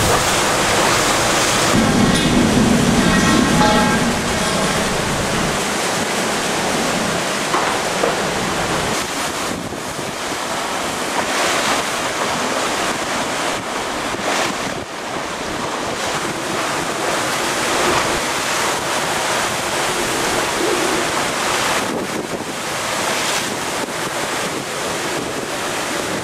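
Typhoon-force wind buffeting the microphone, mixed with driving rain and spray and the rush of storm-surge waves on the waterfront. It swells and eases in gusts, with a brief pitched tone about two seconds in.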